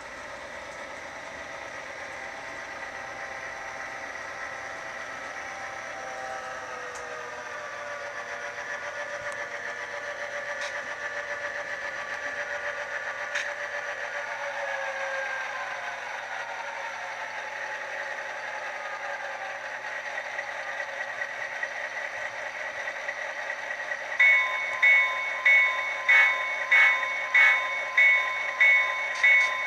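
Sound decoder in an HO scale GP7 model locomotive playing a diesel engine running through its small speaker; the engine's pitch drops about halfway through as it throttles down. About six seconds before the end a bell starts ringing, about one and a half strokes a second, louder than the engine.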